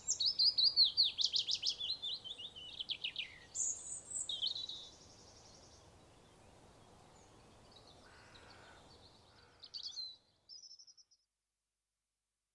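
Songbirds singing over faint outdoor background noise: fast runs of high, quickly repeated falling notes for the first few seconds, then fainter calls and a short burst of song about ten seconds in, after which the sound stops.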